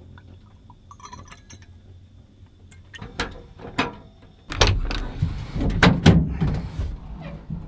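Handling noise of gear being moved about: a faint metallic jingle, a few sharp clicks, then from about four and a half seconds in a clatter of knocks and thumps.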